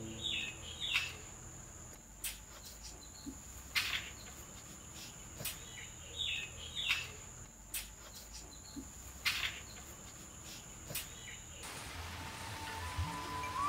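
A steady high insect drone with bird chirps twice, and scattered soft knocks of a wooden spoon mashing a paste in a clay dish. The drone cuts off about twelve seconds in as background music starts.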